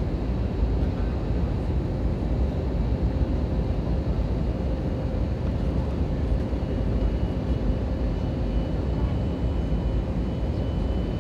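Steady cabin noise inside an Airbus A320neo airliner on approach: a low, even rumble of airflow and engines, with a faint steady tone running through it and a thin higher tone joining about halfway in.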